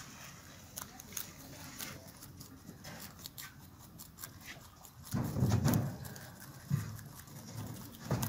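A group of rabbits chewing and pulling at fresh grass and hay: a steady run of small crisp clicks and rustles. About five seconds in comes a louder, low rustling for under a second, with shorter ones later.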